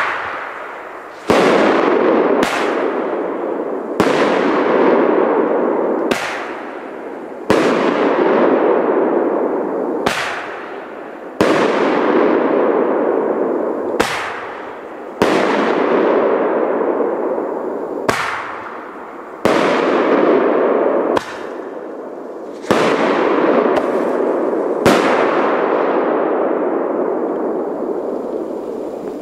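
Czech salute firework firing a rapid series of loud bangs, about fifteen of them at uneven gaps of one to three seconds. Each bang trails off in a long rolling rumble.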